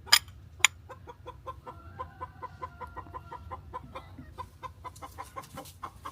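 Chickens clucking, a rapid run of short repeated notes, with two sharp clicks in the first second.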